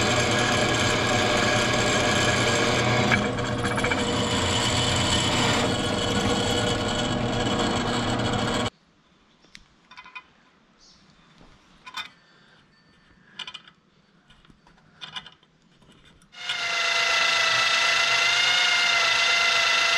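Drill press running as it bores through steel plate, cutting off suddenly about nine seconds in. Then several seconds of faint clicks and scrapes from a hand tap being turned to thread a hole in the steel. About sixteen seconds in, a handheld electric drill starts and runs steadily as it drills through a steel plate held in a bench vise.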